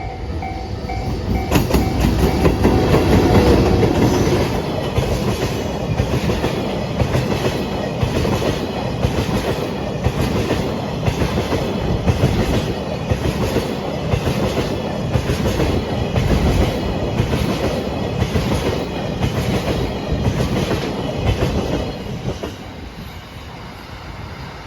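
An EH200 electric locomotive passing at speed with a train of oil tank wagons: a loud rush as the locomotive goes by, then a steady rhythmic clatter of wagon wheels over the rail joints, dropping off about 22 seconds in as the last wagon passes. A level crossing alarm is ringing at the start, drowned out as the locomotive arrives.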